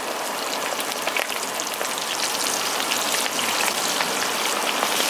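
Batter-coated squid pieces deep-frying in a wok of hot oil: a dense sizzling crackle that grows gradually louder as more pieces go in.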